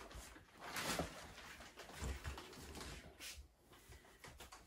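Thin plastic wrap rustling and crinkling faintly and on and off as it is pulled off a mattress.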